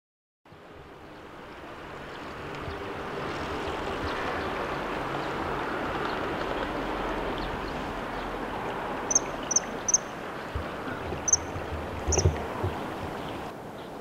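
Shallow river water rippling over stones, a steady rushing that fades in and swells over the first few seconds. About two-thirds of the way in, a bird gives a handful of short, high chirps.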